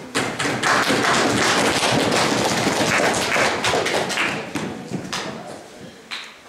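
Audience applause: many hands clapping at once, right after a speech ends, thinning out and dying away about five seconds in, with a last lone clap near the end.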